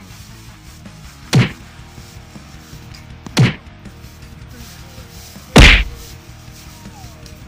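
Three sharp whacks about two seconds apart, the third the loudest, over faint background music.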